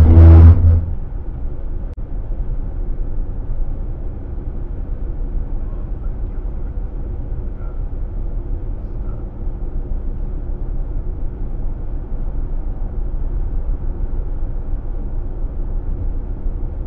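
Car tyres running over a shoulder rumble strip at highway speed: a loud, low buzzing drone that stops about a second in as the car drifts back into the lane. After that, steady tyre and road noise heard from inside the car's cabin.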